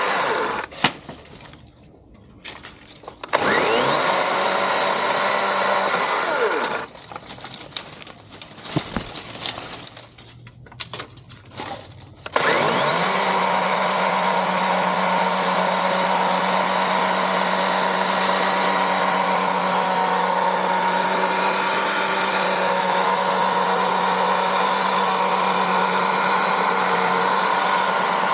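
DeWalt DCCS620 20V cordless chainsaw's brushless motor and chain running with a steady whine. It stops just after the start, spins up with a rising pitch about three seconds in, and stops again about three seconds later. It spins up once more about twelve seconds in and holds a steady pitch.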